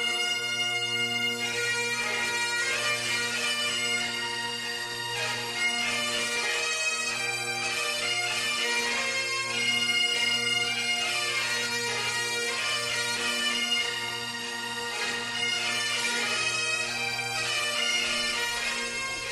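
Bagpipes playing a tune: a melody on the chanter over steady low drones.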